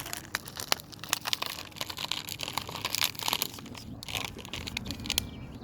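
Irregular crinkling and crackling rustle close to the microphone, a dense run of small clicks.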